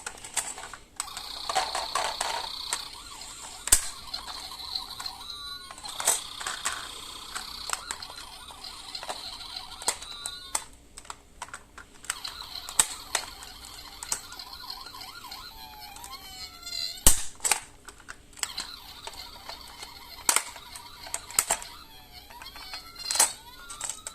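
Die-cast toy cars clicking and knocking sharply and irregularly as they are handled and rolled, with emergency-vehicle siren sounds coming and going underneath in rising and falling wails.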